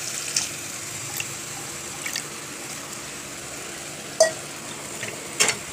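Water poured into a hot pan of thick tomato masala with green peas, the pan hissing steadily as it simmers. A spatula clicks against the pan a few times, sharpest about four and five and a half seconds in.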